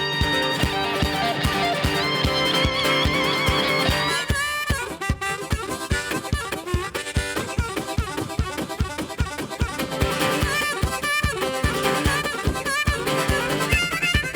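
Live band instrumental break: a steady, fast drum beat under a lead instrument that holds wavering notes, then plays quick runs from about four seconds in.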